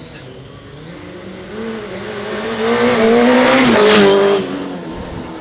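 Racing motorcycle approaching at speed, its engine rising in pitch and getting louder. It is loudest about four seconds in, then drops in pitch and fades as it passes.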